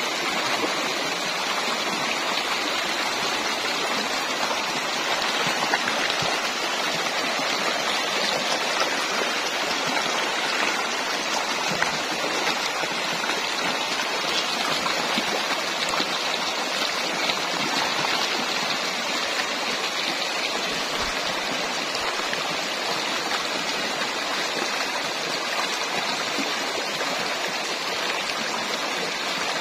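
Shallow rocky stream rushing steadily over stones, a constant even wash of water.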